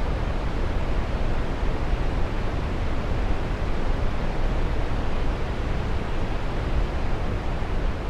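Waterfall pouring into a plunge pool: a steady, even rushing noise that does not change.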